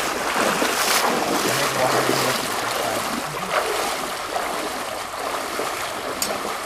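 Creek water rushing and splashing in a steady wash of noise.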